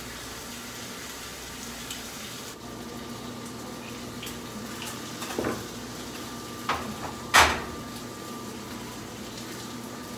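Steady sizzling hiss of food frying in a pan on a gas stove, with a few sharp clatters of the pan and utensils in the second half, the loudest about seven seconds in.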